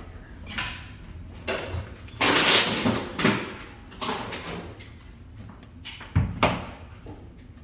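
Irregular knocks and clatter, with a longer burst of noise a couple of seconds in and a sharp thump about six seconds in, like doors and drawers being worked.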